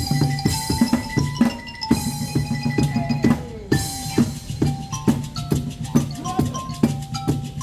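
Live percussion jam on found-object instruments (a wooden cajon, pots and pans and PVC pipes) played in a fast steady beat, with quick drum strikes and short ringing metallic tones at several pitches.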